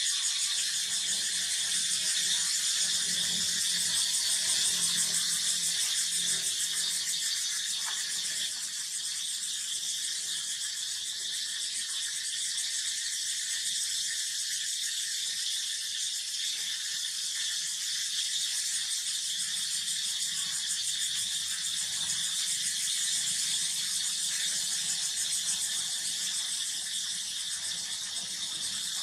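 Steady, high, fast-pulsing drone of insects, unbroken throughout.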